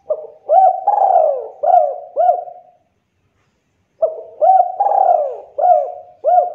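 Spotted dove cooing: two phrases of about five throaty coos each, the second beginning about four seconds in.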